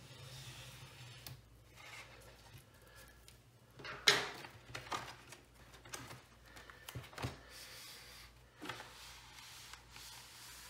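Plastic shrink wrap on a vinyl LP jacket being slit along the edge with a cutter and pulled open, crinkling and crackling, with one loud crackle about four seconds in. Near the end the record's inner sleeve slides out of the cardboard jacket with a soft scraping hiss.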